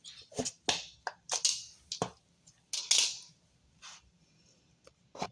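Snap ring pliers and the wheel bearing's steel retaining snap ring clicking and scraping as the ring is worked out of its groove: a string of sharp metal clicks, with a longer scrape about three seconds in.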